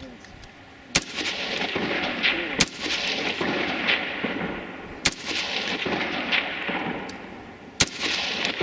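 Four single rifle shots, a couple of seconds apart, each followed by a long rolling echo that fades away.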